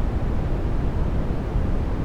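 Brown noise: a steady, even rumbling hiss, strongest in the low bass and fading toward the highs, with no tones or breaks.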